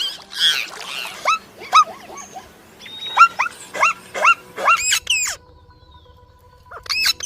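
A run of short, high animal calls, each a quick squeak that hooks sharply in pitch, about two a second, then a brief lull before two more calls near the end.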